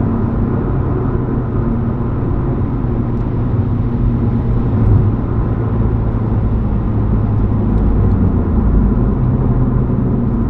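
Exhaust of a 2015 Subaru WRX with a Nameless muffler delete, its turbocharged 2.0-litre flat-four giving a steady low drone as the car drives at a roughly constant engine speed.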